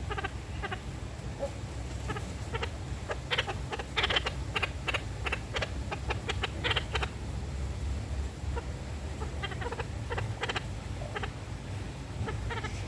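Parakeets chattering: quick runs of short calls, busiest about four to seven seconds in and again around ten seconds, over a low steady hum.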